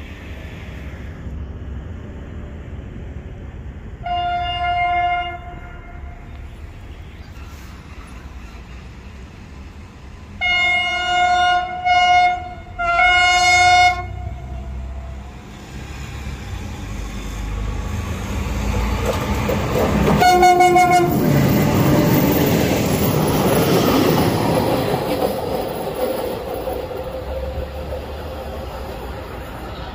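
CFR class EA electric locomotive hauling a passenger train: its horn sounds one blast, then three more blasts a few seconds later, and a last short blast as the train reaches the microphone. The rumble of the locomotive and carriages on the rails swells as it passes and then fades as it draws away.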